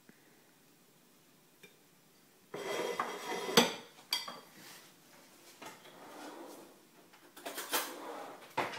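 A knife and china plates clinking and scraping while a slice of steamed sponge pudding is served out. After a quiet start, a burst of clatter comes about two and a half seconds in, with the sharpest clink a second later, and more clinks near the end.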